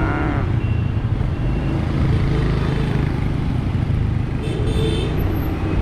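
Motorbike engine running steadily under way, with a continuous rumble of wind and road noise. A brief high-pitched sound cuts through about four and a half seconds in.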